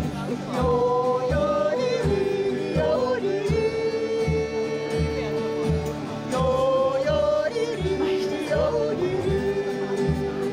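Background music: a yodelled song of held notes with sudden leaps in pitch over a steady bass beat.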